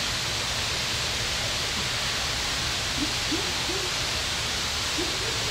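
Steady rushing background noise at an even level, with a few faint, distant voice-like sounds about three seconds in and near the end.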